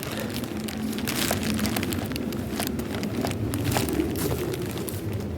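Irregular crackling and rustling of dry leaves, twigs and debris being disturbed in woodland, over a low rumble. The crackles thin out near the end.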